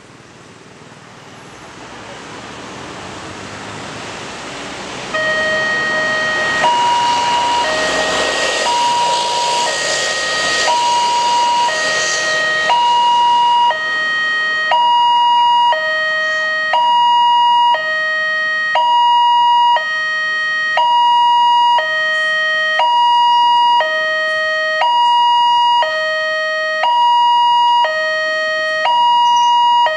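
Railway level-crossing alarm from a loudspeaker on the crossing signal pole. It starts about five seconds in: an electronic two-tone signal alternating between a lower and a higher tone about once a second, warning that a train is approaching and the barriers are closing. Passing road traffic is heard under it, loudest in the first half.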